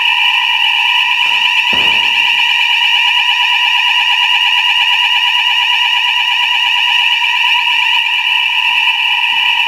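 Fire alarm sounding a loud, continuous, steady tone.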